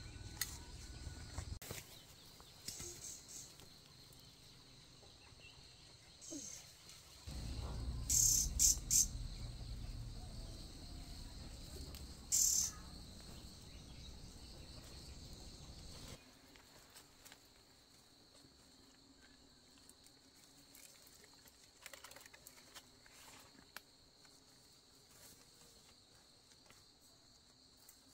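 Insects chirring steadily in one high, even drone, with a few short, sharp rustles over it. A low rumble comes in about seven seconds in and stops suddenly about sixteen seconds in.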